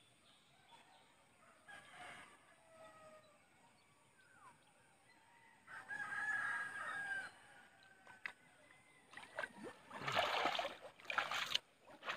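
A rooster crows once, about six seconds in: one held call about a second and a half long. Near the end comes rustling and scuffing as someone moves through grass and mud.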